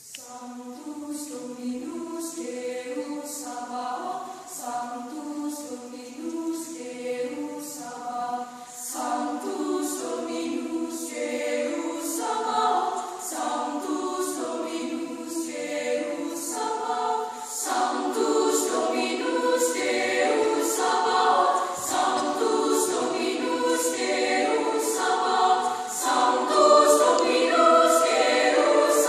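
Girls' choir singing a cappella in high treble voices, coming in together after a brief silence and growing gradually louder.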